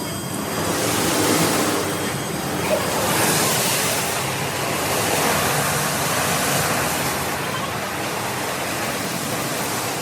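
Water jets of an automatic car wash machine spraying onto a car: a loud, steady hiss that swells and eases several times.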